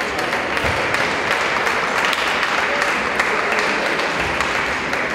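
Spectators applauding a won point in a table tennis match, a dense clapping that drops away near the end.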